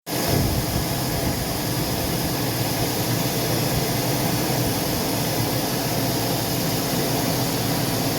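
5.3L Vortec V8 engine of a Chevrolet Silverado running steadily, a low rumble under a steady hiss.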